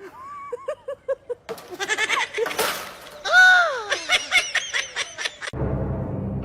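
An animal calling: a few short calls, then one long cry that rises and falls about three seconds in, followed by a quick run of shorter calls. A low steady hum starts near the end.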